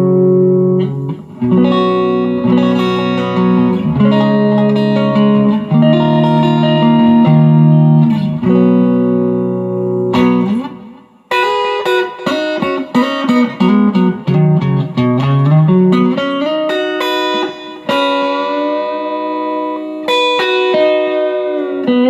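M-Musi Virgo Fusion electric guitar played through an amp: held chords for about ten seconds, a brief break, then quicker single-note lines with string bends and vibrato.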